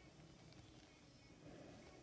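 Near silence: faint room tone with a couple of soft clicks.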